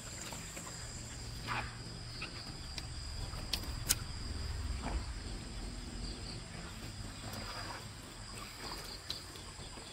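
Steady high-pitched trilling of night insects such as crickets, with a low rumble and a few faint clicks and knocks, the sharpest about four seconds in.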